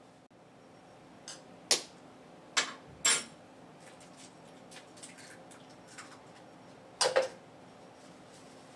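Sharp clicks and knocks from kitchen items being handled on a countertop: a few light taps in the first few seconds, then a louder double knock near the end, over faint room tone.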